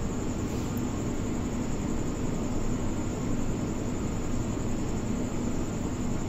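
Steady hiss with a faint low hum: background room noise. No distinct kitchen sounds stand out.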